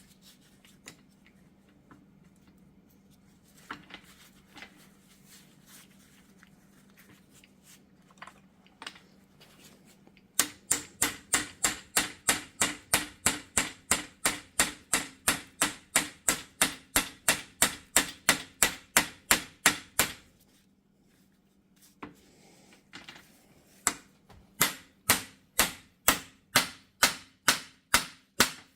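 Hammer tapping a universal joint bearing cap into the yoke of a Jeep Wrangler front axle shaft to seat it. The taps are sharp and even, about four a second, in two long runs: the first starts about ten seconds in and lasts about ten seconds, and the second follows after a short pause. Before them there are only a few faint knocks of handling.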